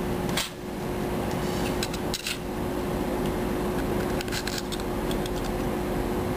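Small plastic and metal clicks and scrapes of parts being handled inside a KSC Glock 18C airsoft pistol frame, clustered about two seconds in and again a little past four seconds, over a steady background hum.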